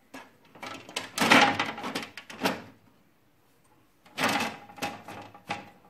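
Clattering and knocking of hard parts being handled on the HP LaserJet P3005 printer during repair work, in two bursts with a pause between.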